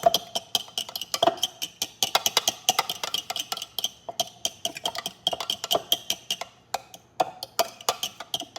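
Raw eggs being beaten in a bowl, the utensil clicking rapidly against the bowl's side several times a second, with short breaks about four and seven seconds in.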